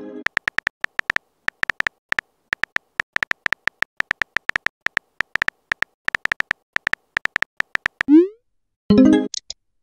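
Phone keyboard tap sounds, short identical clicks about five a second, as a text message is typed. About eight seconds in a short rising pop marks the message being sent, followed by a brief chime-like alert tone near the end.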